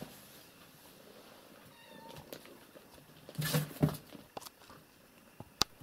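Domestic cat meowing: a couple of short meows about three and a half seconds in, after fainter thin mews, and a single sharp click near the end.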